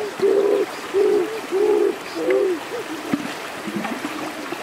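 Clay pot held under in a running stream, glugging as air bubbles out while it fills: short, hollow, pitched glugs about two a second, thinning out after about three seconds, over the stream's rushing water.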